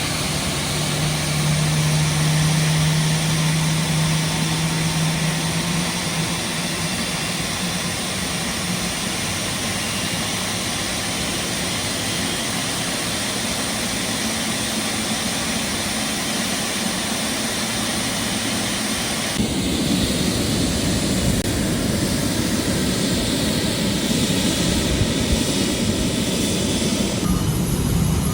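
Steady jet turbine noise from a Boeing 777F's GE90-110 engines being started with a jet air starter. A low steady tone fades out after a few seconds, and the sound changes character about 19 seconds in and again near the end.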